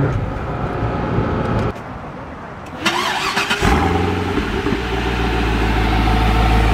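Lingenfelter twin-turbo 427 V8 of a Corvette. The engine is first heard running from inside the cabin. About three seconds in it fires up with a sharp burst and a quick rise in revs, then settles into a steady, deep idle with no turbo whistle to be heard.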